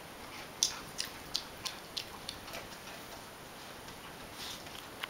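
A Chow Chow crunching a dog cookie: a run of sharp crunching clicks, about three a second, that thins out after about three seconds.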